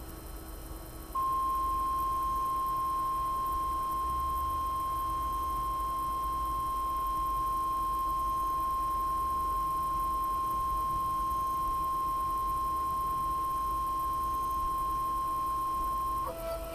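Kudo3D Titan 1 resin printer's stepper motor moving the build plate through the resin vat: a steady, high, single-pitch whine that starts about a second in, then turns into a lower, uneven two-note tone near the end.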